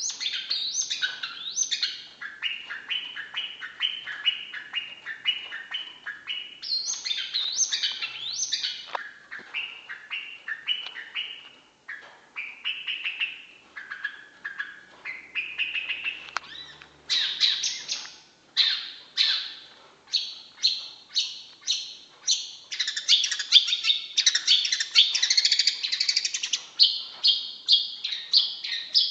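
Long-tailed shrike (cendet) singing a fast, varied chattering song of short notes repeated in quick runs. It grows louder and denser about halfway through.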